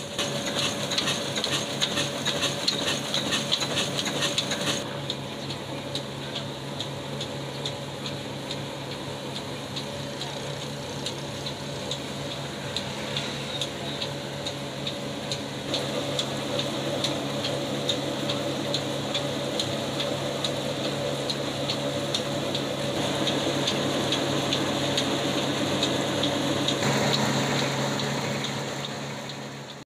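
Old black Ruston-type single-cylinder horizontal diesel engine running steadily under load, belt-driving a wheat grinding mill: a steady low hum with a fast regular beat. The sound fades out at the very end.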